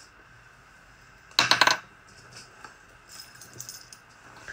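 A short rattling clatter of small hard objects handled close to the microphone about a second and a half in, followed by faint clicks and handling noise.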